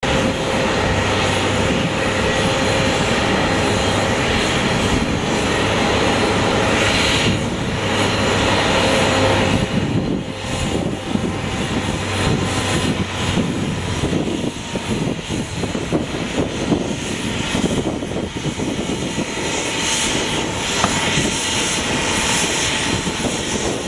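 Jet aircraft engine noise, a loud steady rush with a low hum underneath that drops out a bit over halfway through.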